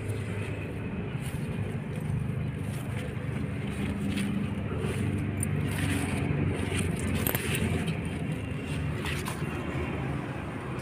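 Steady low outdoor background rumble with a few faint clicks and rustles.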